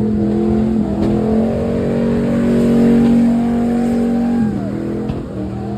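A car engine revving and held at high revs, its pitch rising a little, then dropping off about four and a half seconds in.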